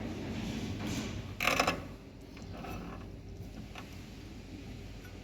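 Metal parts and hand tools being handled during wheel-hub work, with a click at the start and a louder, ringing metallic clatter about a second and a half in, then quieter shuffling.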